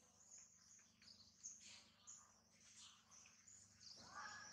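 Near silence with faint, high bird chirps and insect noise.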